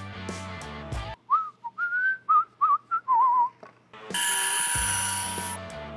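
The background music drops out and a person whistles a short, casual tune with sliding notes and a warble at the end. About four seconds in, a bright steady high tone sounds for about a second and a half, and the music comes back in.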